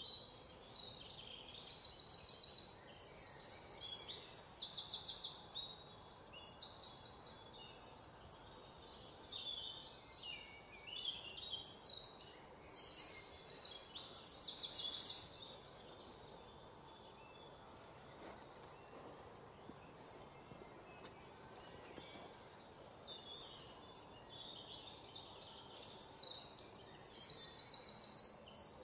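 A songbird singing bouts of rapid, high-pitched trills and chirps, three main bursts of several seconds with quieter gaps between, over a faint steady outdoor hush.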